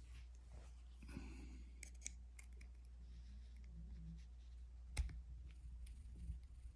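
Faint, scattered small clicks and scrapes of a padlock being worked apart by hand with small tools, with one sharper click about five seconds in.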